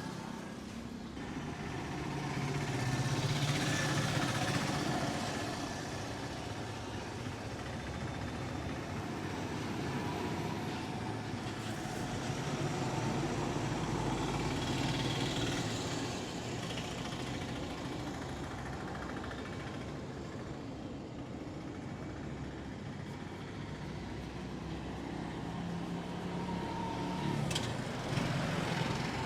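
Street traffic: motor vehicle engines running under a steady low hum, with vehicles passing close by twice, swelling and fading. A sharp click near the end.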